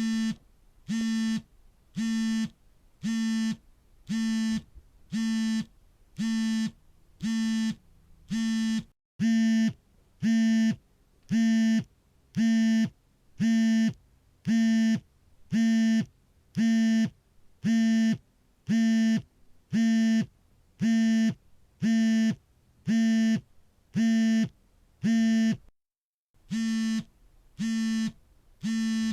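Smartphone vibrating for an incoming call: short even buzzes, about three every two seconds, each one a steady pitched buzz. The pattern breaks twice with a brief dead gap, and the buzzes are louder after the first gap.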